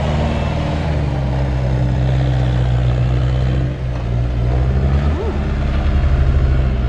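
An engine running steadily with a deep, even hum that grows a little louder in the second half.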